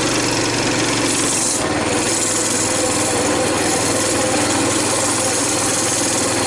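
Coleman BT200X mini bike's 196cc single-cylinder four-stroke engine running steadily at low throttle while the bike rolls over grass, under a loud, even rushing noise.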